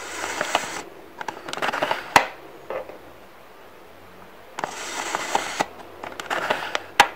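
Plastic View-Master viewer's advance lever pressed twice. Each press is a scraping rattle as the reel turns, ending in a sharp click as the next picture snaps into place.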